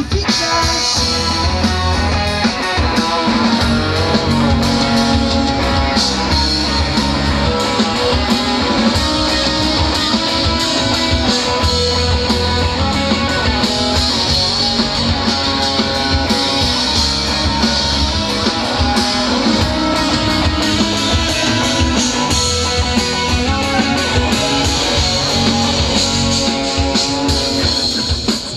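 Live rock band playing loudly: electric guitar, bass and drum kit keeping a steady beat.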